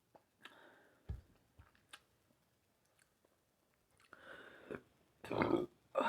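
Close-miked mouth and throat sounds: scattered lip clicks and breaths, then about five seconds in a short, loud throaty burst, followed by another just after.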